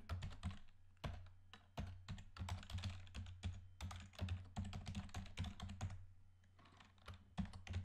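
Typing on a computer keyboard: irregular runs of key clicks, with a short lull near the end.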